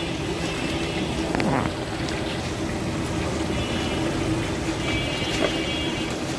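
Chicken pieces frying in shallow oil on a large flat iron pan, a steady sizzle, with the metal spatula now and then scraping the pan. Street traffic runs behind it, with a high buzzing tone from about three and a half seconds in.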